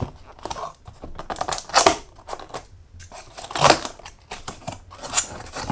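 Cardboard shipping box being opened by hand: scissors put down, then the box's cardboard tab and flaps pulled open, a run of clicks and scuffs with two louder short rasps of cardboard about two seconds apart.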